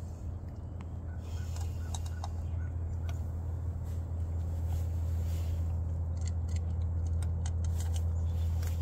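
Cats crunching dry kibble from a bowl, heard as scattered small crisp clicks that come thicker in the second half, over a steady low hum that grows slowly louder.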